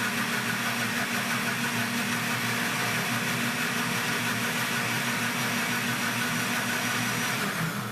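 Philco countertop blender running steadily at full speed, mixing liquid chocolate cake batter, and switched off near the end.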